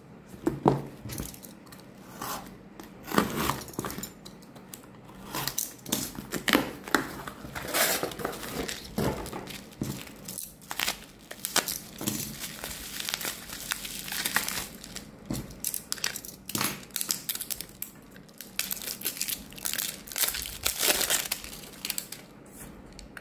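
Plastic courier mailer and bubble wrap crinkling and rustling in hands as a parcel is unwrapped: dense, irregular crackles that die down near the end.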